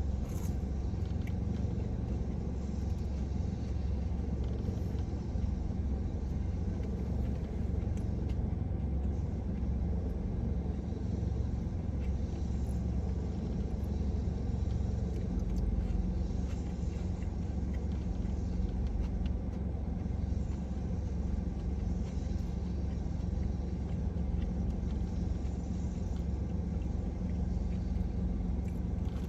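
Steady low rumble, with a few faint clicks here and there.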